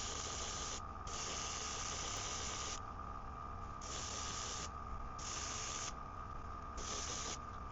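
Airbrush spraying paint in repeated bursts of hiss, cutting on and off about five or six times as the trigger is pressed and released, over a steady hum.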